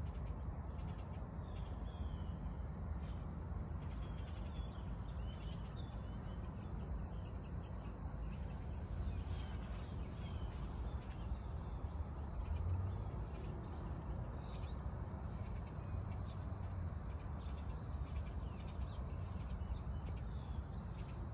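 Steady high-pitched insect trilling at one constant pitch, over a low rumble.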